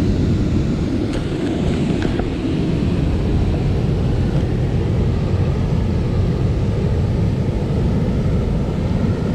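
Steady, loud low rushing noise of fast water below a dam spillway, with wind on the microphone, holding even and unbroken throughout.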